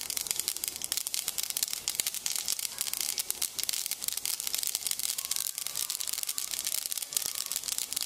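Mustard seeds sizzling and spluttering in hot oil in a steel kadai: a dense, steady crackle of tiny pops, the tempering stage of the cooking.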